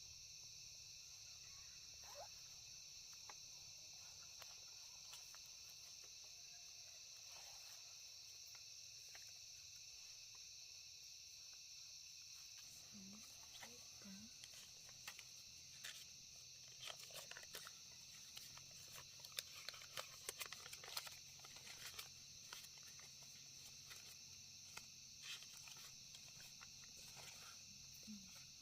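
Faint, steady high-pitched chirring of night insects. From about halfway through, a scatter of irregular clicks and rustles joins in.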